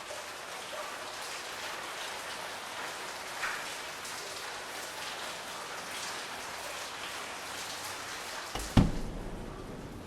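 Steady rain, many drops pattering on a surface. A single sudden loud thump with a short low rumble comes near the end, after which the rain grows quieter.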